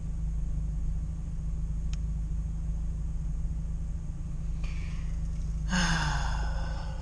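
Steady low drone of a UAZ-2206 van's engine and road noise heard inside the cab while driving, with a short breathy sound, like a sigh, about six seconds in.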